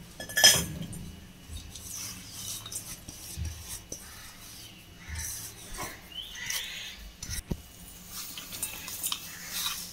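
Crumbled jaggery being tipped from a steel bowl into a stainless-steel pan and pushed in by hand: a sharp clink of metal on metal about half a second in, then soft rustling and a few light taps.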